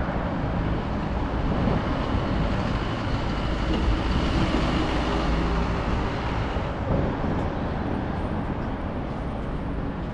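City street traffic noise with a low rumble of passing vehicles, easing slightly after about seven seconds.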